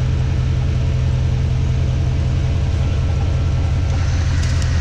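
Off-road vehicle engine running steadily with a deep, even low rumble.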